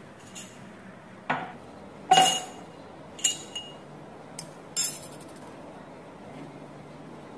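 Drinking glasses set down on a stone countertop and clinking, about six sharp knocks with a brief glassy ring, the loudest about two seconds in.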